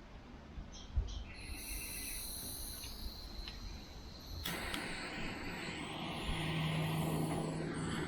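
Heat gun switched on about halfway through, blowing with a steady rushing noise and a low hum, shrinking heat-shrink tubing over a crimped wire joint. A few faint clicks come before it.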